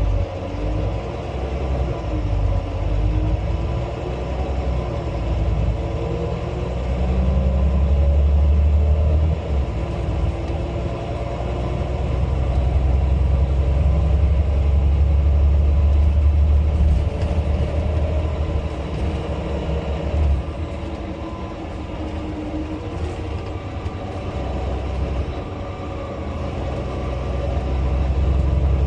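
Volvo B9 bus on the move: a deep engine rumble that swells and eases in long waves, with whining tones above it that rise and fall with speed.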